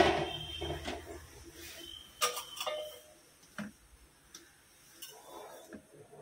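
Scattered light clicks and taps of sapodilla fruits being picked out of a bucket of raw rice and set into a plastic colander, a handful of separate knocks with pauses between them.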